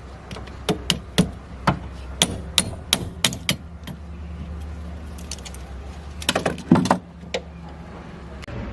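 A run of sharp, irregular knocks and clinks, about a dozen in the first few seconds, then a quick flurry of them near the end, over a steady low hum.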